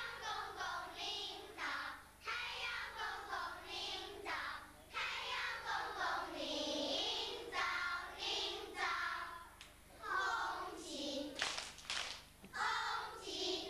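A class of young schoolchildren singing a song together in unison, with a few hand claps near the end.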